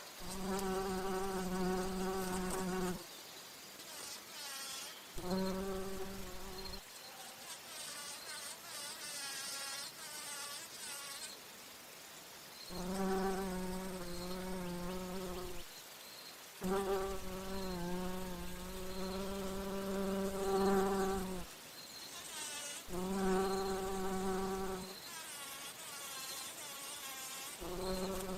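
Bumblebee buzzing in flight: a low, steady buzz that comes in loud bouts of one to five seconds, six times, with fainter, wavering buzzing between the bouts.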